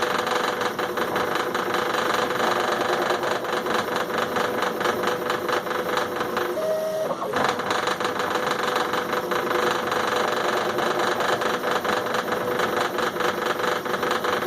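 CNC laser machine at work: its stepper motors drive the head with a steady whine and a rapid, even rattle. About seven seconds in, the rattle stops for under a second and the whine shifts higher before the motion resumes.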